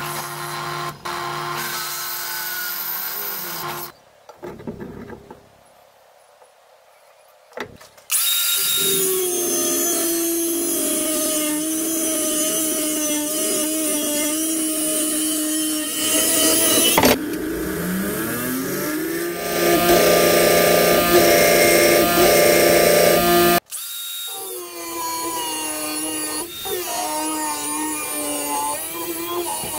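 Drill press drilling into a steel tube, a steady motor tone, for the first few seconds. Then, after a quieter spell, an angle grinder with a thin cut-off disc cuts through steel flat bar, its pitch dropping under load and rising again as it spins back up between cuts.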